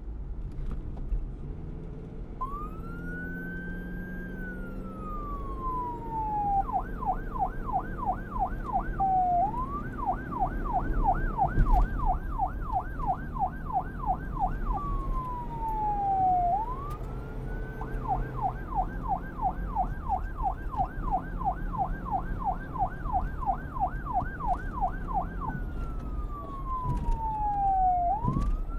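Police car siren switching between a slow wail, which sweeps up and slides down, and a fast yelp warbling several times a second, three yelp stretches in all. A low vehicle rumble runs underneath.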